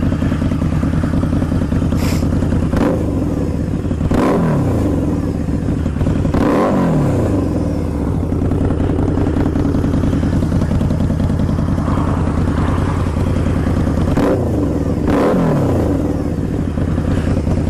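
Harley-Davidson V-Rod V-twin running through non-baffled TAB Performance slip-on mufflers, idling loudly and being blipped several times, the revs falling back to idle after each blip. It is still untuned for the new mufflers.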